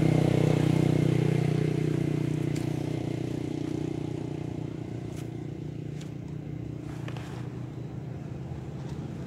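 A motor vehicle's engine running steadily, loudest at the start and fading away over the first few seconds as it moves off. A few light clicks come later.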